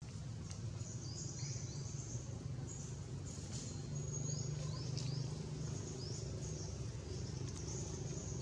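Forest ambience: a bird giving short, high, rising chirps over and over, over a steady low rumble.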